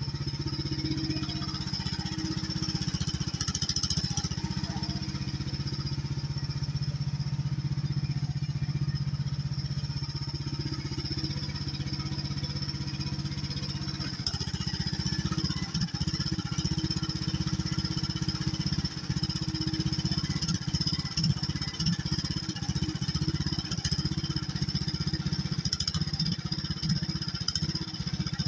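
Hightop HT10 mini excavator's small engine running steadily while the machine digs with its boom and bucket. Scattered knocks come through in the second half.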